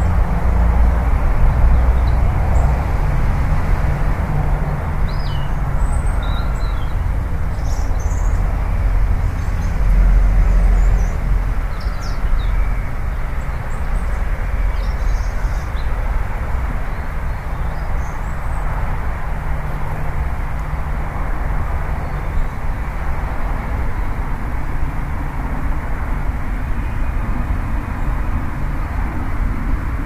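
Steady low outdoor rumble, with short, faint, high bird chirps scattered through the first half.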